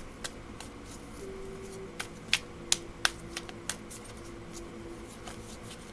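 Tarot cards being handled on a table: irregular light clicks and snaps as cards are shuffled, drawn and laid down.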